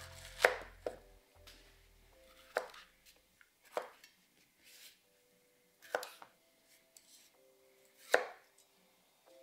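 A chef's knife chopping through celery stalks onto a 20 mm thick Parker Asahi Professional synthetic rubber cutting board, each stroke a crisp crunch ending in a knock on the board. About seven separate chops at an uneven pace, the loudest about half a second in.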